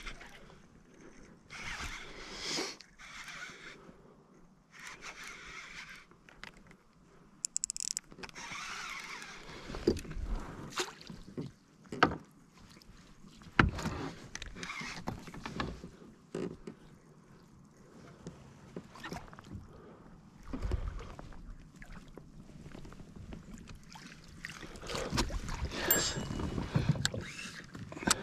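Water splashing beside a plastic fishing kayak as a hooked largemouth bass is fought and netted, with irregular sharp knocks of the rod, net and gear against the hull.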